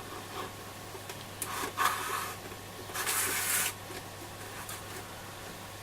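Handling noise from a Selena B210 transistor radio being worked on: a few short rubbing and scraping sounds, the two longest about a second and a half in and about three seconds in, over a steady low hum.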